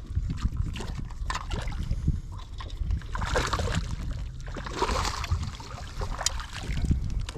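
Water splashing and sloshing at the side of a small fishing boat as a just-caught fish is brought in and handled, in irregular bursts, the loudest about three and five seconds in, with a few sharp clicks. A low rumble of wind on the microphone runs underneath.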